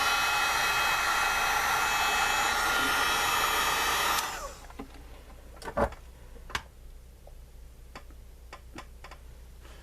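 A small electric blower motor runs steadily with a hissing rush and a faint whine, then is switched off about four seconds in; a few light clicks and taps follow.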